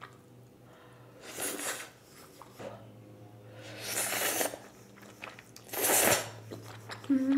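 Three slurps of udon noodles sucked in from chopsticks, each a short airy hiss about two seconds apart, with soft chewing between. A low steady hum underneath.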